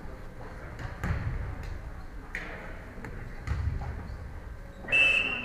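A volleyball referee's whistle gives one short, shrill blast near the end, signalling the serve. Before it there are scattered light knocks and dull thuds.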